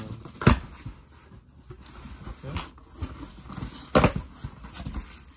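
A cardboard shipping box being opened by hand: rustling and handling, with two sharp knocks or rips, about half a second in and about four seconds in, and a few lighter clicks between.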